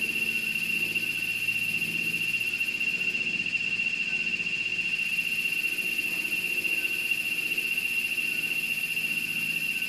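A steady high-pitched whine at one constant pitch, unbroken and unchanging, over a faint low hum.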